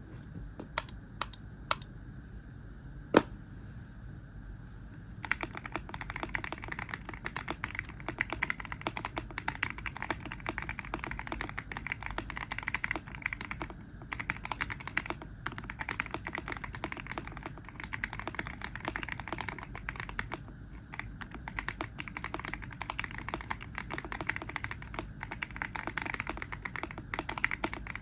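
GMK67 Pro mechanical keyboard with Akko Cream Yellow linear switches, tape- and foam-modded, being typed on. A few separate keystrokes come first, one of them louder, then fast continuous typing from about five seconds in, broken by short pauses.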